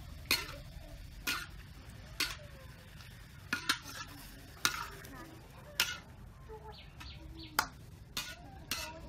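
A metal ladle stirs and scrapes sliced cucumbers in a steel wok. It clinks sharply against the pan about once a second, over a steady low hum.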